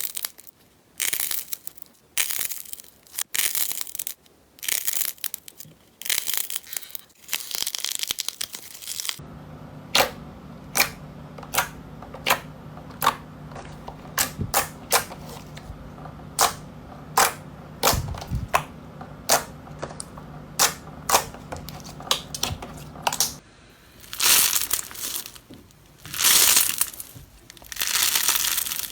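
Slime being squeezed and pressed by hand: crackly, crunching bursts, then a stretch of sharp separate pops a little over one a second over a steady low hum, then crunching bursts again.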